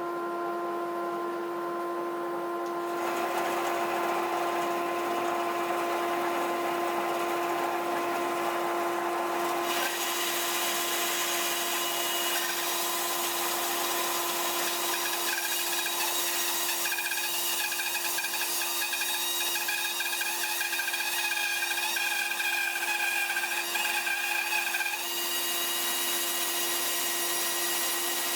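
Table saw running at full speed with its blade cutting wood. The motor has just spun up at the start, and the rough cutting noise grows stronger about three seconds in and again about ten seconds in.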